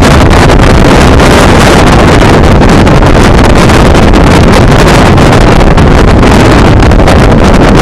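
Strong beach wind buffeting the microphone: a loud, steady rush of noise with a heavy low rumble, pushing the recording close to overload.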